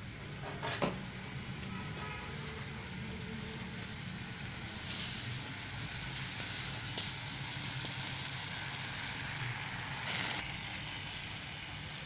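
Battery-powered toy train running across a tiled floor: a steady small-motor whir with its wheels rolling, and a couple of sharp clicks, the loudest about a second in.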